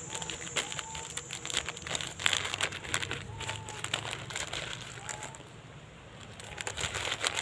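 Plastic snack wrapper crinkling and crackling in irregular bursts as a macaque handles it and eats from it.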